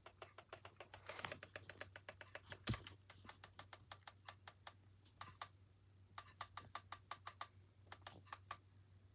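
Faint typing on a computer keyboard, irregular runs of key clicks in bursts, with one louder thump a little under three seconds in.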